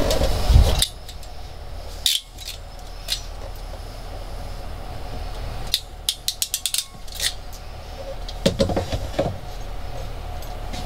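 Small metallic clicks and rattles from a hand wire crimping/stripping tool and wiring being worked, with a quick run of clicks about six seconds in and a few more near nine seconds. A brief low rumble of handling comes at the very start.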